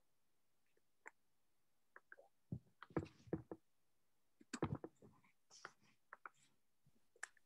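Scattered soft clicks and taps of typing on a device, heard over a video call, bunched in a short run about two and a half to three and a half seconds in and another around five seconds in.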